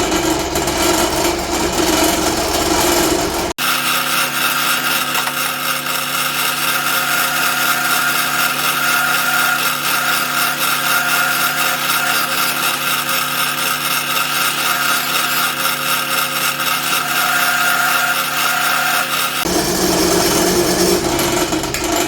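Drill press running steadily while a 2 mm drill bit bores into a Damascus steel knife blade. The sound changes abruptly about three and a half seconds in and again near the end.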